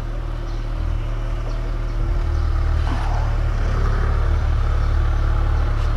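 Motorcycle engine idling steadily while warming up, a low rumble that grows slightly louder about two seconds in.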